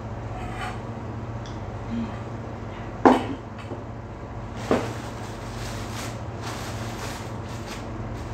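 Two sharp clattering knocks of a bowl and dishes set down on a tabletop, about a second and a half apart, the first the louder; then a plastic bread bag rustling and crinkling as it is handled, over a steady low hum.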